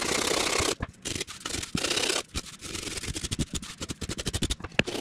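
Coarse 36-grit sandpaper on a block and a coarse wood rasp scraping blue extruded-polystyrene foam, shaping a canopy plug by hand: one long stroke, then a quick run of short scraping strokes.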